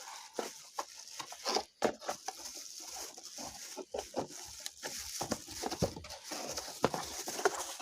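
Packaging being worked open by hand during an unboxing: irregular crinkling and rustling with many sharp clicks and crackles.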